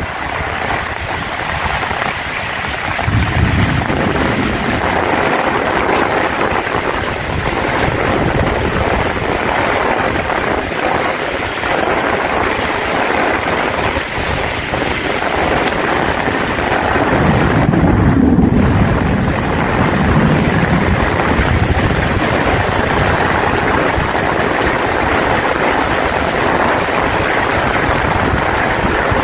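Heavy rain falling in a gale, with gusting wind buffeting the microphone. The gusts swell lower and louder a few seconds in and again past the middle.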